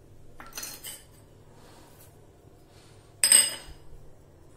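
Small stainless-steel bowls clinking and scraping as ingredients are tipped out of them onto a plate: a short run of light clinks about half a second in, then one sharp, ringing clink a little after three seconds, the loudest sound.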